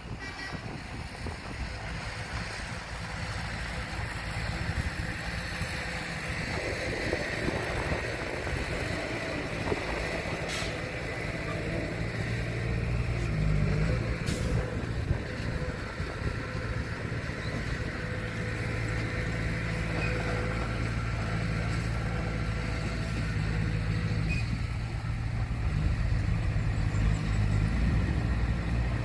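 Diesel engine of a heavy construction truck running steadily, with a deep, even hum that grows louder over the second half.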